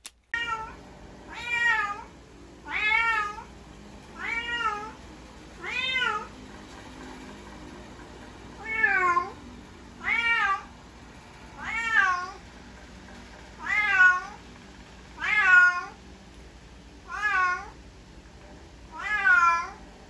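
A domestic cat meowing over and over: about a dozen separate meows, each under a second and rising then falling in pitch, coming every second and a half to two seconds with one longer pause partway through. A faint steady low hum runs underneath.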